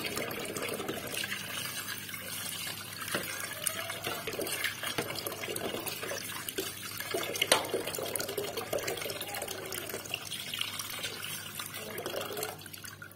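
Tap water running into a sink and splashing over hands that are rinsing a small turtle, with a few scattered knocks. The tap is turned off near the end and the water noise stops.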